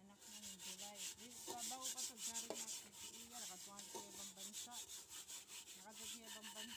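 A hand scrubbing the inside of a soot-blackened metal cooking pot with wet grit, in quick scratchy rubbing strokes, several a second, scouring the soot off the pot.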